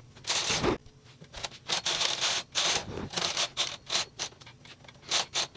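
Brother standard-gauge knitting machine: a run of short metallic scrapes and rasps along the needle bed, about nine irregular strokes, as the needles and carriage are worked by hand with a metal tool.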